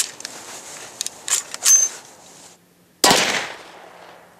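Sharp metallic clicks and clacks from the converted Sterling Mk4 9mm carbine being handled, one with a brief ringing note. About three seconds in comes a single 9mm gunshot, a sudden loud crack that fades out over about half a second.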